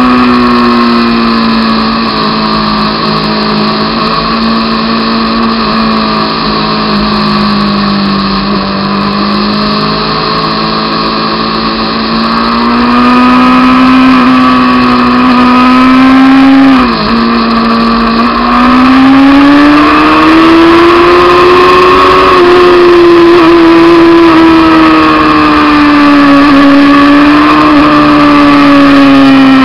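Honda CBR600 F2's inline-four engine running at steady cruising revs. About seventeen seconds in the pitch dips sharply and recovers, then the revs climb for a few seconds and ease off again.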